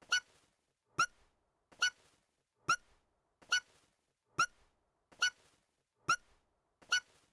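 An anime girl's short, high-pitched hiccup, the same one repeated nine times at an even pace a little under a second apart.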